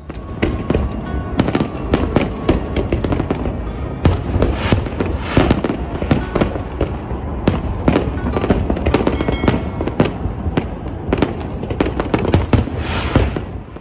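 New Year fireworks display going off in a dense, continuous volley of bangs and crackles, cutting off suddenly near the end.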